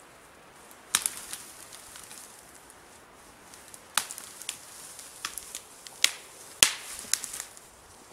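Dry dead twigs and branches snapping and cracking as someone pushes through a fallen tree's tangle of branches. Several sharp cracks, the loudest about a second in and two more near the end, with lighter crackling between.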